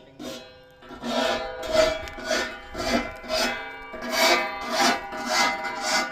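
A file drawn back and forth across a saw's steel teeth to sharpen them, in rasping strokes about two a second, with steady ringing tones under the strokes. The strokes are softer for the first second, then stronger.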